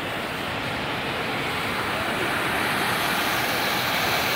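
Rushing floodwater: the muddy torrent of an overflowing ravine, a steady rushing noise that grows a little louder and brighter about halfway through.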